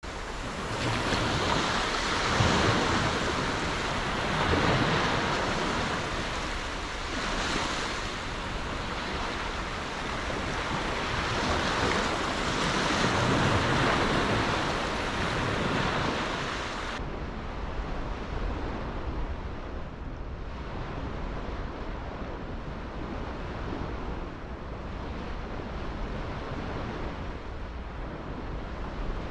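Small sea waves washing in over the sand at the water's edge, swelling and ebbing every few seconds. About halfway through the sound changes suddenly to a softer, duller rush of distant surf and wind.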